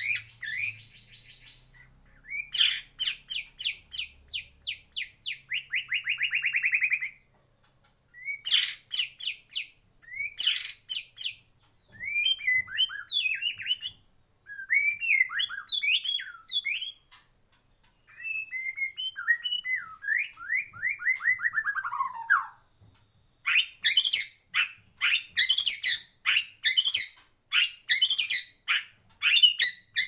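White-rumped shama (murai batu) singing a varied song of quick phrases. A long trill grows louder a few seconds in, and another trill falls in pitch about two-thirds of the way through. Fast, sharp repeated notes run through the last several seconds.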